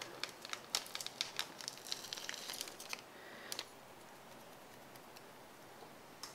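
Plastic seasoning sachet crinkling in quick crackles as it is worked open and squeezed to empty its powdered soup base, with one last crackle a little past halfway.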